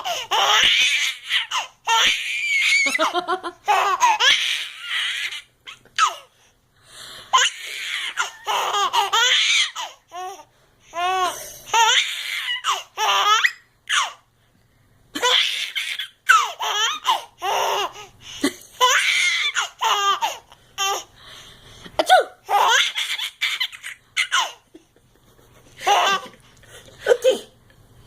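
A baby laughing hard in repeated bursts of belly laughs, with short pauses between bouts.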